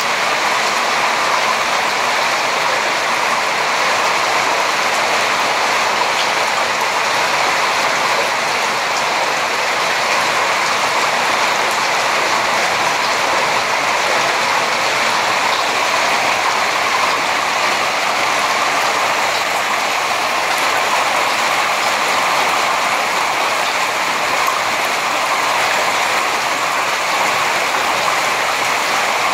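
Heavy hail falling steadily, a dense, unbroken patter of hailstones striking balconies, patio furniture and the ground.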